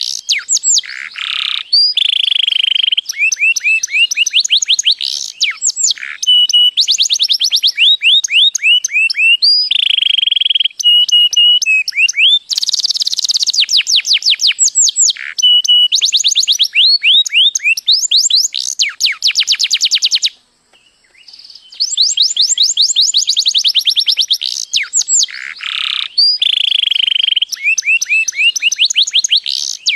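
Domestic canary singing: a long song of fast trills, each a run of quickly repeated high notes, changing from one trill to the next. There is a short break about two-thirds of the way through before the song starts again.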